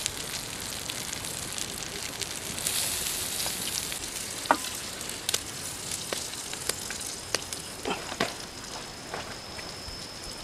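Pig intestine sizzling on a flat stone heated over a wood fire: a steady hiss with scattered sharp pops and crackles from the fat and the burning wood.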